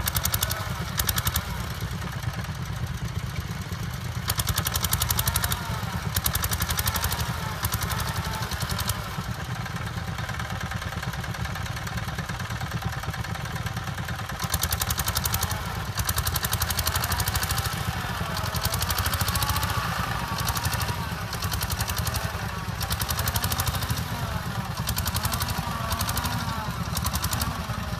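Vintage tractor engine running steadily, its rapid firing beat rising and falling in loudness over several stretches, with some clatter.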